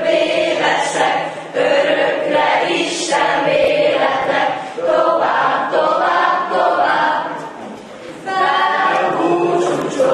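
A group of graduating students singing a song together in chorus as they walk in procession, in sung phrases with short breaths between. The singing drops away briefly about three quarters of the way through, then comes back in full.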